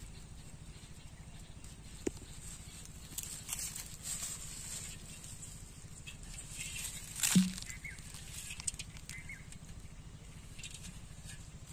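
Handling noise: a plastic bag rustling and crinkling in hands, with one louder knock about two-thirds of the way through.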